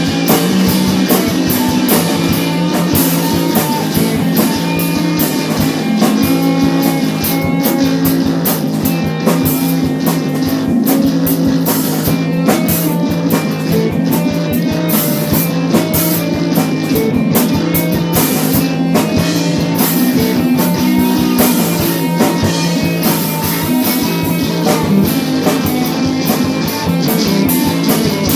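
A rock band playing a 60s-style tune, with guitar over a drum kit keeping a steady beat.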